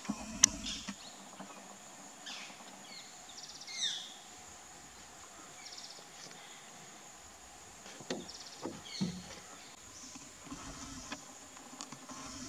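Forest ambience: a steady high insect drone with scattered short bird calls, one falling call about four seconds in, and a single sharp click near the start.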